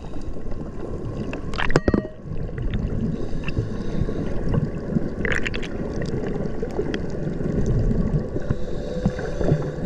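Muffled underwater rush and bubbling of fin kicks churning the surface, heard through a GoPro's underwater housing. A few sharp clicks stand out, the loudest about two seconds in and another about five seconds in.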